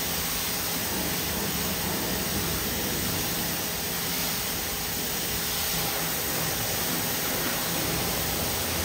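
Water hissing steadily from a hose spray wand and spattering on a pickup truck's paint during a final rinse with deionized water.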